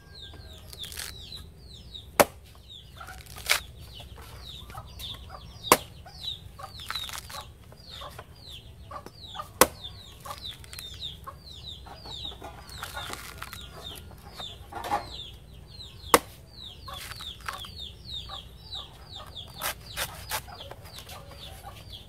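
A machete chopping into the husk of a green coconut, cutting off its top: several sharp, irregularly spaced strikes with lighter taps between them. Chickens call throughout.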